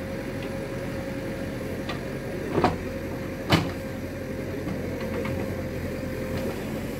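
Backhoe's diesel engine running steadily with a constant whine, and two sharp knocks about a second apart a little before the middle.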